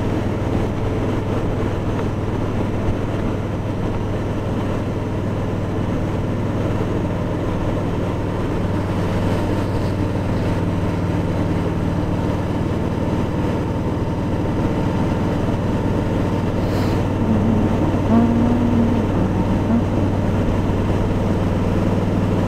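Kawasaki Voyager 1700's V-twin engine running steadily under way, with an even wash of wind and road noise.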